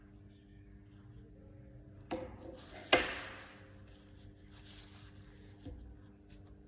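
Two sharp knocks about a second apart, the second louder and ringing on briefly, then a fainter knock near the end, over a steady low hum.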